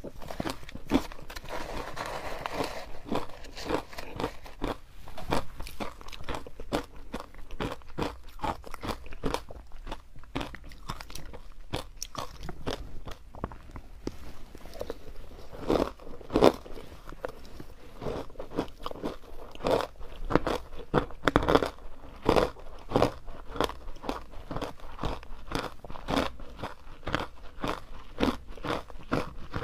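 Teeth crunching and chewing chunks of powder-coated ice, a dense run of sharp crackles as the ice breaks in the mouth, with a few louder bites past the middle.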